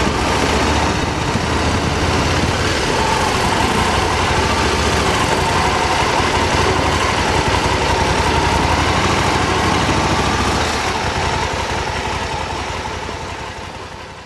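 Motorcycle engine running as the bike rides along at low speed, its note wavering up and down, over a steady rushing noise; the sound fades out near the end.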